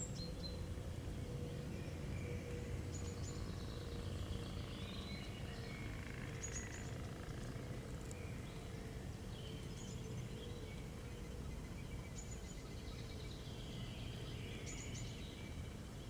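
Woodland ambience: small songbirds chirping and trilling in short phrases every few seconds over a steady low rumble.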